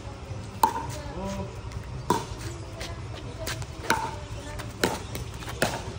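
Pickleball rally: five sharp pops of the hollow plastic ball struck by paddles and bouncing on the court, roughly a second apart.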